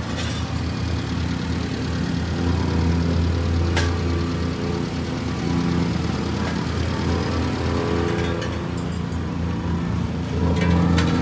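Subaru Sambar kei truck's small four-cylinder engine idling steadily, with a brief click about four seconds in.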